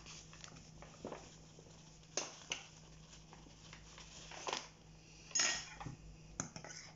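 A fork clinking and scraping against a ceramic bowl, with the rustle of a paper bag as flour is poured into a milk-and-egg mixture and stirred in. It comes as scattered short clicks and rustles over a faint steady low hum.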